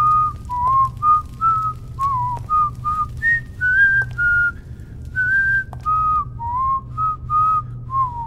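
A person whistling a tune: single clear notes with small slides between them, the phrase repeating about halfway through, over a steady low hum.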